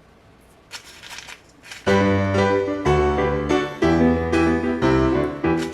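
A few faint clicks and rustles, then about two seconds in, piano background music starts with sustained chords and carries on.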